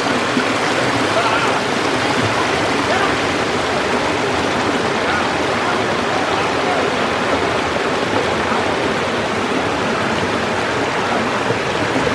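Stream water rushing and splashing over rocks in a steady, unbroken rush.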